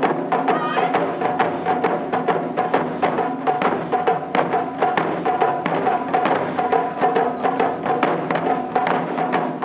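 Wadaiko ensemble playing taiko drums: fast, dense strikes on barrel drums with sharp wooden clicks among them.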